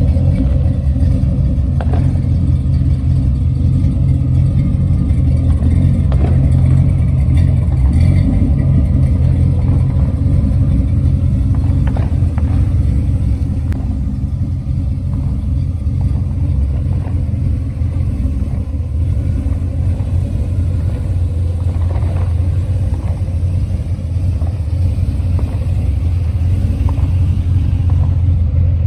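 1977 Chevrolet Corvette's small-block V8 running with a steady, deep rumble.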